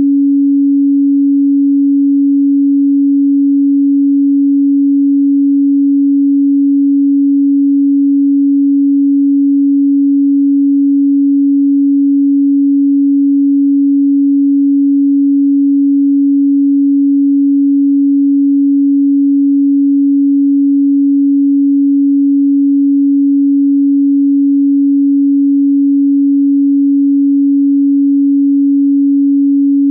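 Pure 280 Hz sine-wave tone, loud and steady at one fixed pitch.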